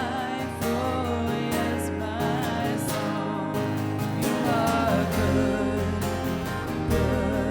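Live worship music: a singer with acoustic guitar and band playing a slow gospel-style song.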